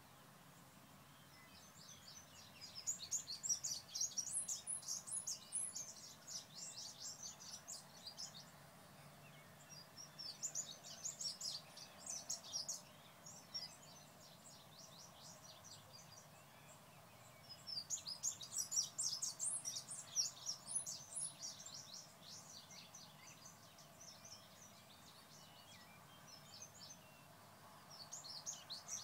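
A songbird singing: songs of rapid high chirps a few seconds long, four times, with short pauses between.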